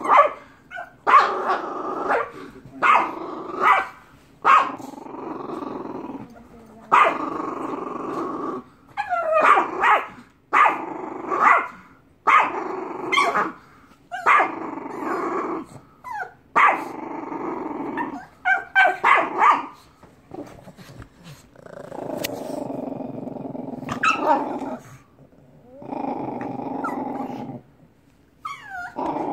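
Pug puppy play-growling in long stretches, broken every second or two by short sharp barks, as it entertains itself wrestling the bedding and a toy.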